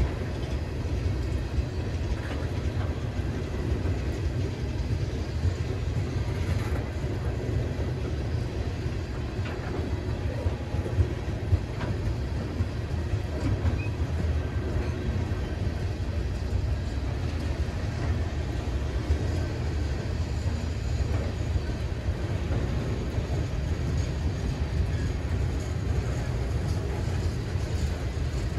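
Norfolk Southern freight train's tank cars and then boxcars rolling steadily past close by, a continuous low rumble of steel wheels on rail. A couple of sharper clacks come a little before halfway.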